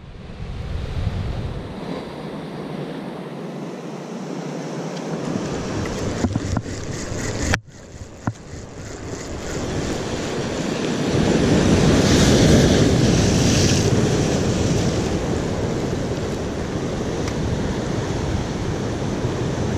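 Waves breaking and washing over a rocky shore, with wind buffeting the microphone. The surf swells to its loudest a little past the middle.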